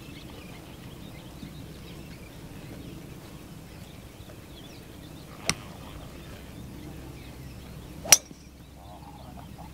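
Two sharp cracks of a golf club striking a ball, about two and a half seconds apart, the second much louder.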